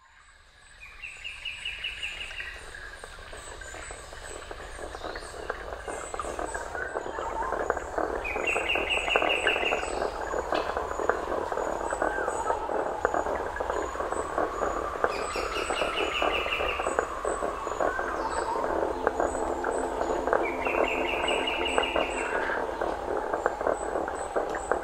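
Dense chorus of small calling animals, heard as a thick mass of fine chirps that fades in over the first couple of seconds. A short, rapid, higher trill repeats four times at even spacing, about every six and a half seconds.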